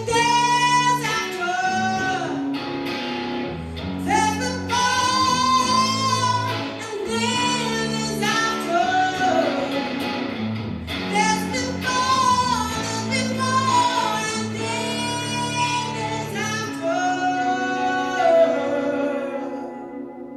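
A high solo voice singing a ballad melody with vibrato over sustained instrumental accompaniment. It ends on a long held note that fades near the end.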